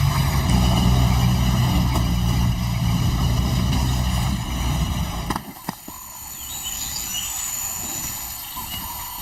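A low, steady engine-like drone, like a vehicle idling, that cuts off suddenly about five seconds in. After a couple of clicks come quieter, high, chirping bird calls.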